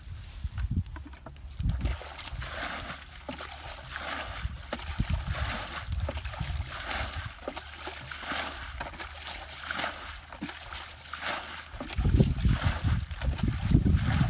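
Muddy water splashing and sloshing as a plastic bucket is scooped through a shallow pool and emptied again and again, about once a second: the pool is being bailed out by hand. Wind rumbles on the microphone in the last couple of seconds.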